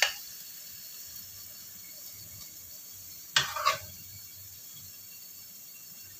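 Black-pepper chicken feet sizzling softly in a wok. A spatula scrapes and knocks against the wok and plate in two brief bursts, one at the start and one about three and a half seconds in.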